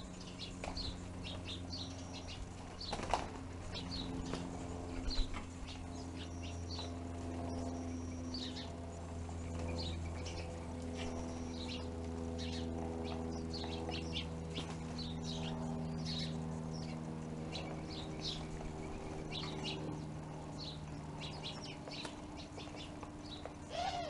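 Small feeder birds chirping over and over while they feed, with a couple of brief wing flutters in the first few seconds. A steady low hum runs underneath.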